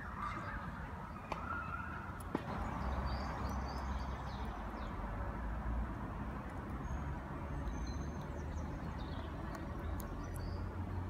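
Outdoor ambience: small birds chirping in short high calls over a low steady rumble, with a couple of sharp clicks about one and two seconds in.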